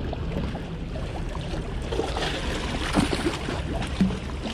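Small waves washing and lapping over wet harbour breakwater rocks, over a steady low rumble, with a couple of short knocks about three and four seconds in.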